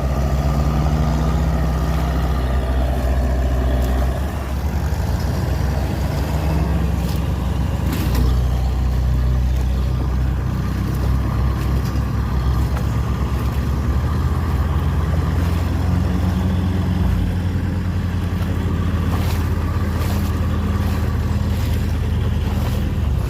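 Diesel engine of a Kubota DC-93 combine harvester running under load while towing a disabled tracked tiller through a flooded field. The engine note shifts a couple of times.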